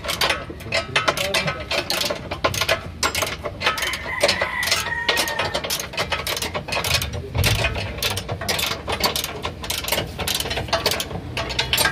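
Socket ratchet clicking in quick runs as a bolt on the front suspension arm is turned, with some metal clinks of tools on the parts.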